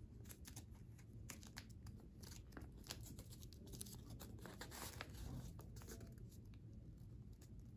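Faint crinkling and crackling of printer-weight paper handled and folded by fingers, with many small crisp clicks, as the narrow points of an origami crane are pulled out and pressed into shape.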